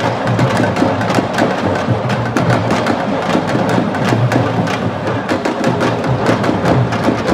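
Fast, dense drumming: many quick, sharp strokes overlapping in a steady rhythm.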